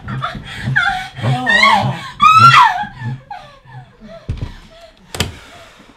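Wordless, high-pitched vocal cries from a couple, gliding up and down in pitch. They are loudest about two seconds in and die away by about three seconds. About five seconds in comes a single sharp click from a door's lever handle.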